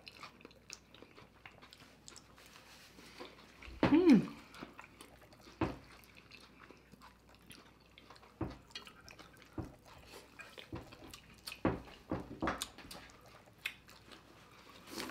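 Close-miked chewing and wet mouth smacks of people eating saucy corn on the cob and boiled vegetables, a scatter of small sharp clicks. One short falling hum of a voice comes about four seconds in.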